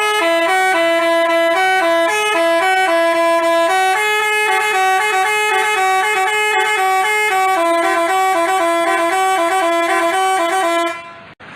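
Telolet basuri multi-tone horn playing a quick melody of stepping horn tones, cutting off abruptly near the end.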